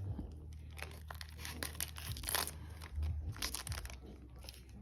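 Trading-card booster pack wrapper crinkling and being torn open, in a run of short crackly bursts over about three seconds.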